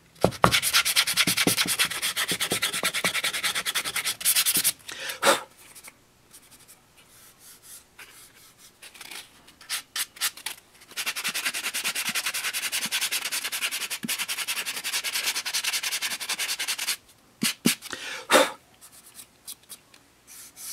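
A sanding block rubbed quickly back and forth along the paper-covered edge of a box, smoothing down the sharp edges where the papers meet. It comes in two spells of rapid strokes, the first about four seconds and the second about six, with a quieter gap of a few light taps between.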